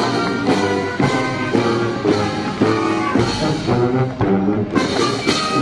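Music with a steady beat and brass-sounding instruments to the fore.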